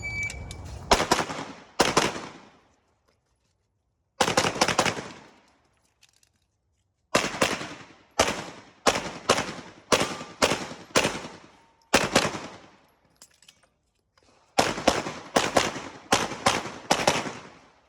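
A shot timer's start beep, then a competition pistol firing about twenty shots in quick pairs and rapid strings, separated by a few pauses of one to three seconds. Each shot rings out with a long echoing tail.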